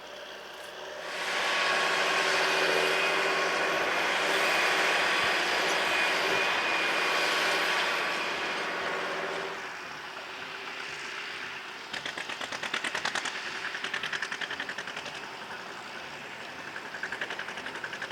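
Tractor engines at work: a loud, steady engine with a held whine for several seconds, easing off at about nine seconds, then a diesel engine with a fast, even chugging rhythm from about twelve seconds in.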